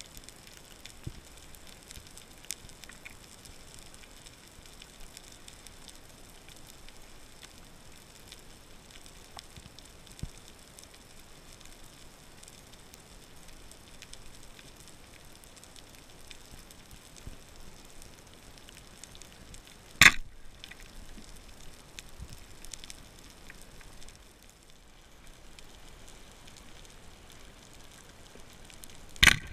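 Steady underwater crackling and hiss over a coral reef, heard through a GoPro's underwater housing, broken by two sharp clicks: a loud one about two-thirds of the way through and another just before the end.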